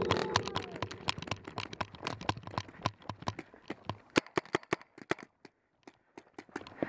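Quick, irregular footsteps and knocks, several a second, as a player moves along a dirt trench, with gear jostling against the camera; they thin out briefly past the middle and pick up again near the end.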